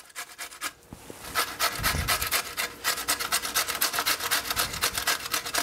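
A pickle being grated on a metal box grater into a bowl: an even run of quick grating strokes, about four or five a second, starting about a second in.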